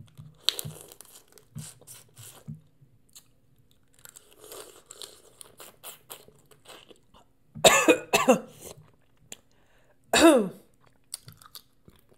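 Boiled crawfish being sucked and chewed with soft, wet mouth sounds, then a loud fit of coughing about eight seconds in and another cough about two seconds later.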